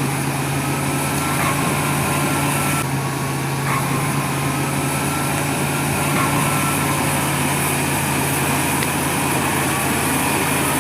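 Small electric motors and gearboxes of toy excavator and bulldozer running steadily with a constant hum and a faint wavering whine, straining against a tow rope on a toy sand truck.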